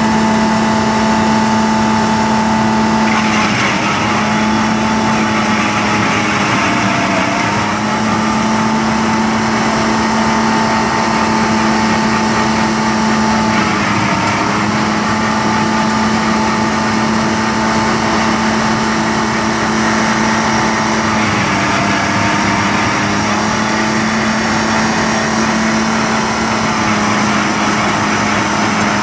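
Detroit Diesel engine of an Ingersoll Rand MW-175 road milling machine running steadily, its pitch dipping briefly a few times as the load changes.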